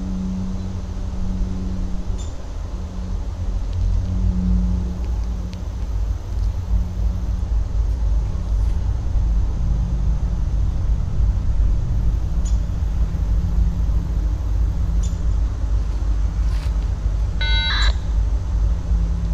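EMD SD40-2 diesel locomotives, with two-stroke V16 engines, loading up as they start a train from a dead stop out of sight: a steady low rumble and drone that grows slightly louder. A short high tone sounds near the end.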